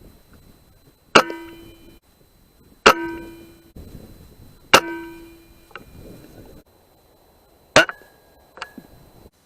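Air rifle shots: five sharp cracks, spaced about two seconds apart at first, the first three each followed by a ringing metallic clang that dies away over about a second.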